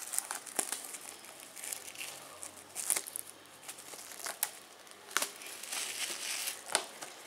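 Clear plastic shrink wrap crinkling and tearing as it is peeled off a Blu-ray case, with irregular sharp crackles.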